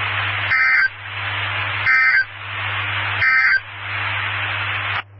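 Three short bursts of EAS/SAME digital data tones, about a second apart, with steady radio hiss between them: the end-of-message code that closes a NOAA Weather Radio warning broadcast.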